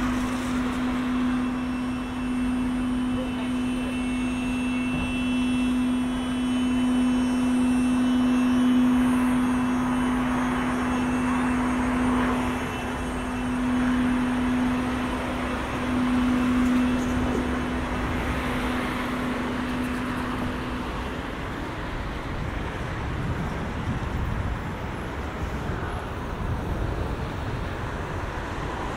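Steady hum of a London double-decker bus standing at a stop, over the even hiss of traffic and tyres on a wet road. The hum stops about three-quarters of the way through, leaving the traffic noise.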